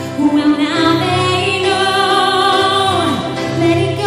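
A woman singing live into a microphone with instrumental accompaniment, holding long notes, one of which falls in pitch about three seconds in.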